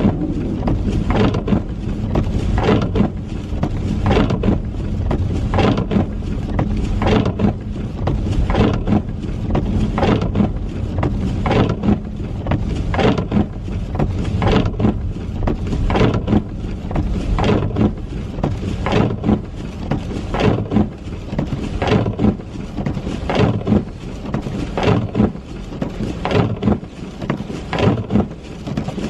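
Steady low tyre-and-engine rumble inside a moving car, with short knocks about once or twice a second.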